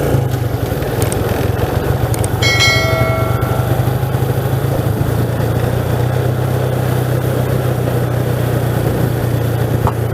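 Small motorcycle engine running steadily at a low, even pitch. A brief ringing tone sounds about two and a half seconds in and fades within a second.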